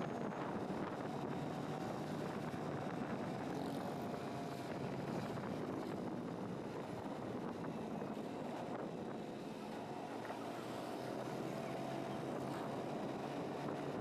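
Steady running noise of a road vehicle on the move: engine hum under road noise, with some wind on the microphone.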